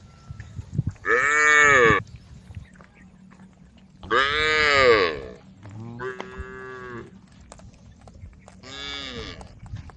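Cattle mooing: four separate calls about a second long each, each bending up and then down in pitch, the loudest in the middle of the run and the last two fainter.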